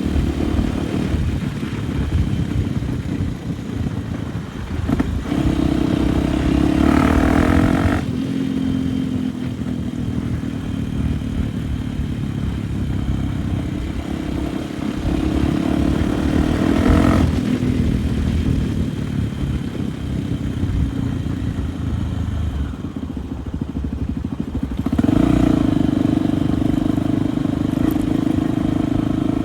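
Dirt bike engine running under way, the revs rising three times as the rider accelerates, with steadier running in between.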